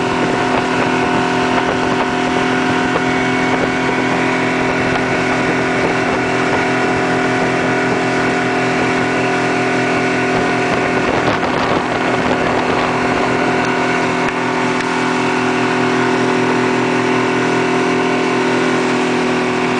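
Motorboat engine running steadily at speed while towing a tube, a constant hum with the rush of the churning wake beneath it.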